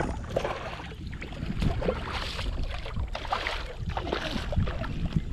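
Water splashing and sloshing around a kayak in short, irregular bursts while a hooked redfish is fought on the line in shallow water.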